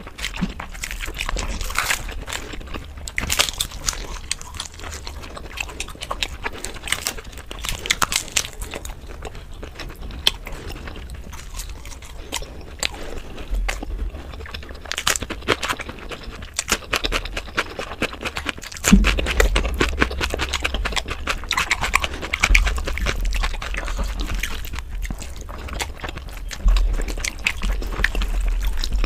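Close-miked eating sounds, sped up to double speed: fingers squish and mix rice into chicken curry, with chewing and lip smacks in a dense run of quick wet clicks.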